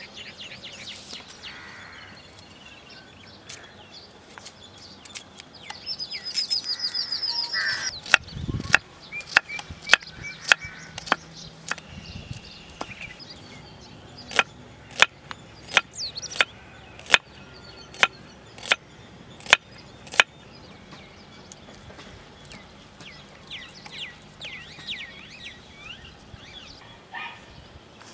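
A kitchen knife chopping red onion on a wooden chopping board: a steady run of sharp knocks, about two a second, for some twelve seconds. Birds chirp around it, with a loud high trill just before the chopping starts and fainter chirps after it stops.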